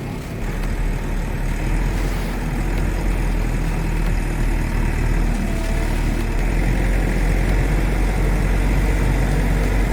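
Heavy diesel engine of log-loading machinery running steadily, deep and low-pitched.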